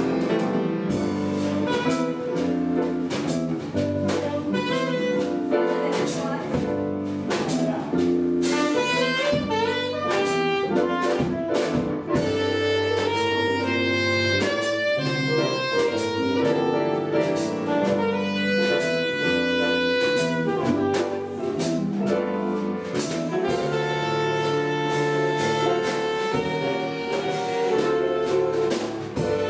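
Jazz combo playing: a tenor saxophone carries held melody notes over a drum kit's cymbals, bass, piano and guitar.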